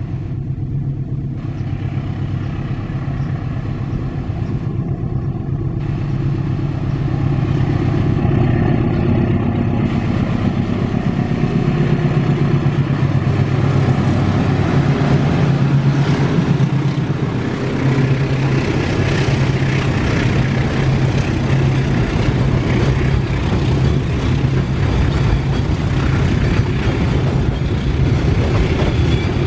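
Diesel locomotive hauling a container freight train past: a steady low engine drone that grows louder as the locomotive draws level, then the rolling rumble and wheel clatter of container wagons going by.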